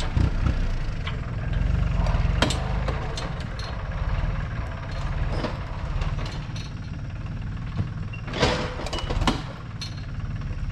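An engine idling steadily, with scattered knocks and clanks over it; the loudest come about three quarters of the way through.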